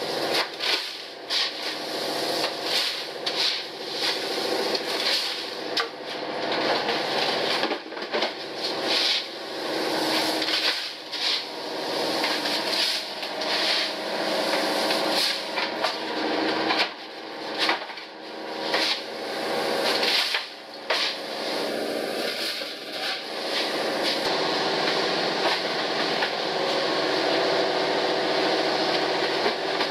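Steady hum of processing machinery in a fish-handling room, with frequent short knocks and clatter as fish and plastic fish crates are handled.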